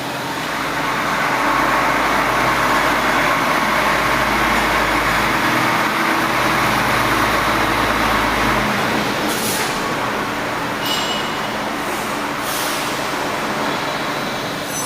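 Double-column band saw running with a steady machine noise and a low hum; the hum stops about two-thirds of the way through, followed by three short hisses.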